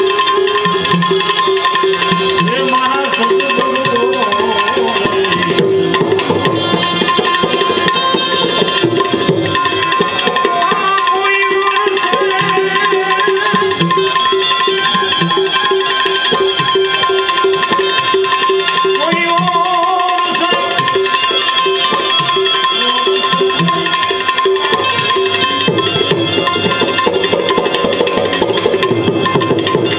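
Indian devotional folk music without words: tabla playing a busy rhythm over a steadily held drone note, with a melody line moving above.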